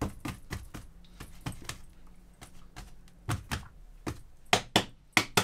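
Hands patting and shaping bread dough on a kitchen worktop: irregular soft slaps and knocks, with a few sharper ones in the last two seconds.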